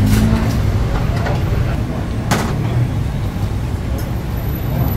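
Steady low rumble of road traffic, with clinks of ceramic bowls and metal utensils being handled at a noodle stall counter, the sharpest about two seconds in.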